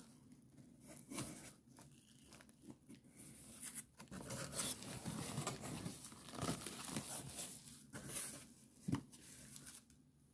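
Hands pulling open the flaps of a cardboard shipping box: irregular scraping and rustling of cardboard and tearing packing tape, with a sharp knock near the end.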